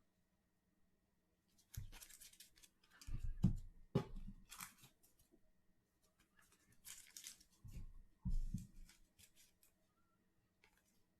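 Trading cards handled and sorted by hand: crisp sliding and flicking of card stock in two spells, with a few low thumps among them.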